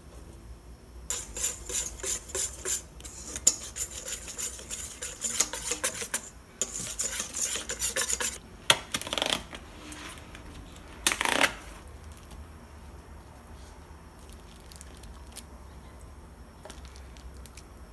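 Kitchen utensil worked fast against a bowl or dish: runs of quick scraping strokes, then a couple of single louder scrapes, then only light clinks.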